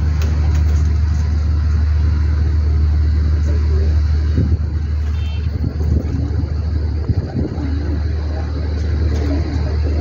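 Domestic pigeons cooing now and then, short wavering calls, over a steady low machine-like hum.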